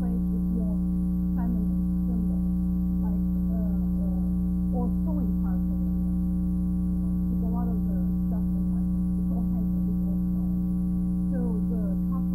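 Steady electrical hum with many overtones, the loudest thing throughout, with a woman's speech faint and barely audible beneath it: the speech was recorded at very low level.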